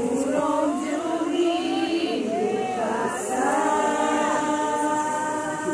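A group of voices singing or chanting together with no instruments, their lines overlapping. Long held notes come in from about three seconds in.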